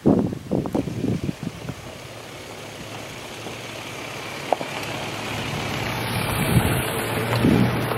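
Ford Ranger pickup driving slowly past on a rough dirt track, its engine and tyres on gravel growing steadily louder as it draws close near the end. A few loud knocks and bumps in the first second or so.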